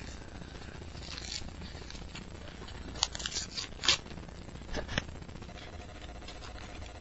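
Paper and card rustling and tearing as a homemade booster pack is torn open and the cards handled: a few short, crisp scrapes, the loudest about three to four seconds in.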